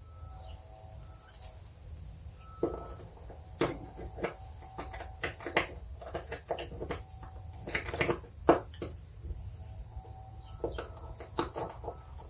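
A steady high chirring of crickets or other insects runs throughout. Over it come scattered light clicks and taps as small trimmer muffler parts are handled and cleaned out.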